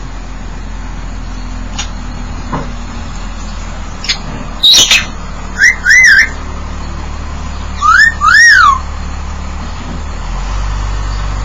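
African grey parrot calling: a short harsh squawk about four seconds in, then two pairs of loud whistles, each rising and then falling in pitch, around six and eight seconds in. A steady low rumble runs underneath.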